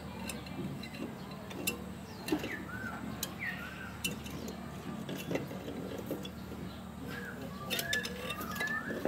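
Light metal clicks and taps from a small motorbike engine's finned cylinder barrel being slid along its studs onto the piston by hand. Small birds chirp now and then, mostly about a third of the way in and near the end.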